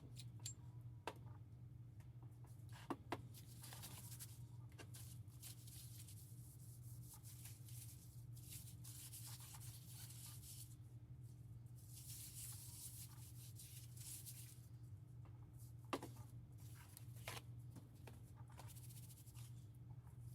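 Faint handling of metal telescope-mount parts: soft rubbing and scraping in several stretches, with a few light clicks, over a steady low hum.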